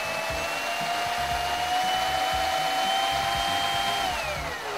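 Small DC winding motor running under PWM speed control, a steady whine that climbs slowly in pitch as it speeds up. About four seconds in, the pitch falls away as the motor slows on nearing its set length.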